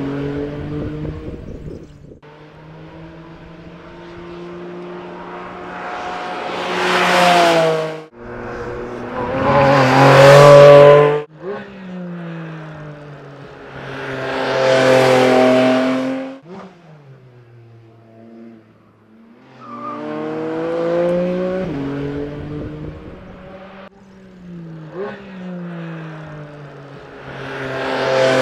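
Porsche 718 Cayman GT4 RS's 4.0-litre naturally aspirated flat-six at full throttle on track. The pitch climbs hard through the gears with sudden drops at each shift, then steps down on braking about two-thirds of the way through. The sound swells loudly as the car passes close, several times.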